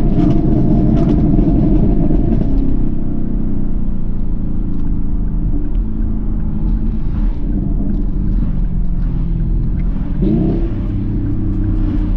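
2021 Camaro SS's 6.2-litre LT1 V8 with cat deletes under hard throttle for the first couple of seconds, then settling to a steadier, quieter run; about ten seconds in its pitch briefly rises again.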